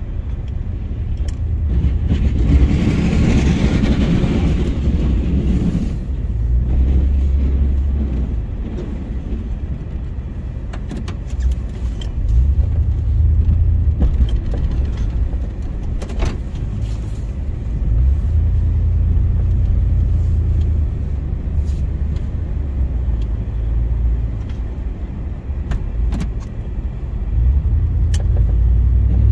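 GMC plow truck's engine running as the truck pulls away and drives down the road, heard from inside the cab, with a low rumble that swells and eases several times. About two seconds in, a rush of noise lasts a few seconds over the engine.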